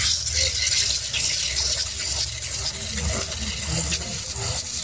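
Milk squirting from a cow's teats into a small plastic cup as the cow is hand-milked, a hissing spray of liquid.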